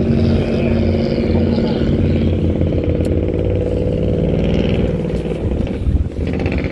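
Outboard boat motor running steadily at low speed, a continuous low engine drone. A single sharp click about three seconds in.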